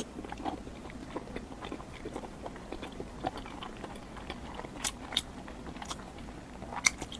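A person chewing and biting food close to the microphone, with irregular wet mouth clicks and smacks, a few sharper ones a little past halfway.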